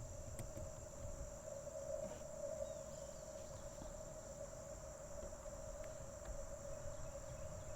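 Icom IC-705 receiver hiss heard through its CW filter: a steady, grainy rushing tone at one pitch, with no Morse signal keying on the frequency. Insects buzz steadily at a much higher pitch.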